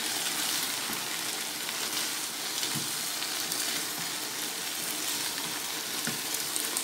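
Chicken, shredded cabbage and bell peppers sizzling steadily as they are stir-fried in a non-stick frying pan. A few soft knocks of the wooden spatula against the pan come through as it tosses the food.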